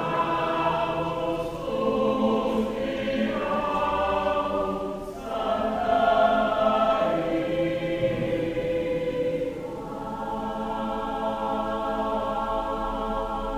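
Choir singing a slow sacred piece in long held chords that change every few seconds.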